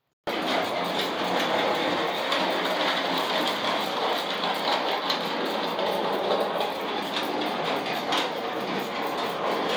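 A 1905 Lionel 2 7/8-inch gauge Metropolitan electric trolley running on two-rail steel track: a steady rattling whir of its motor and wheels with frequent small clicks. It cuts in abruptly at the very beginning.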